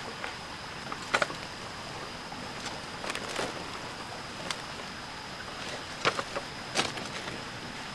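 Light knocks and clacks of a plastic basket being handled and set down on a slatted wooden platform: one sharp knock about a second in, a cluster around three seconds, and two more near six and seven seconds, over a steady high-pitched hum.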